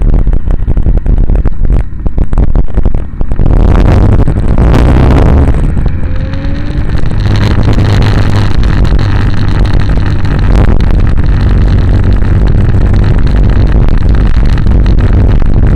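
Moving vehicle heard from a mounted camera: heavy wind rumble on the microphone over a steady low engine drone, with rapid rattling knocks over the first few seconds.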